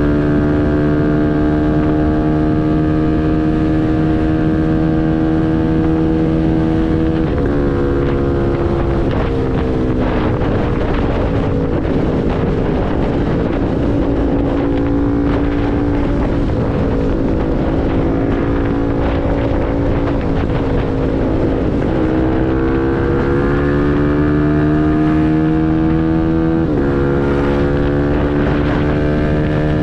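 CFMoto NK250 single-cylinder engine through a full Akrapovič exhaust, running under way. The note holds steady, drops around the eighth second, then runs lower with wind on the microphone before climbing again near the end, with a short dip as if shifting gear.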